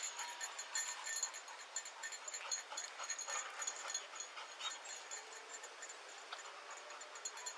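Faint, irregular rustling and light ticks with quiet dog sounds, heard through a police body camera's thin-sounding microphone.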